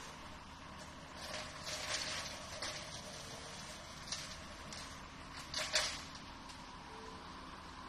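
Excavator-mounted Brush Wolf 4800X brush cutter running with a steady machine hum, breaking into loud rushes of shredding noise as its blades chew through branches and brush, about one to three seconds in and again near six seconds.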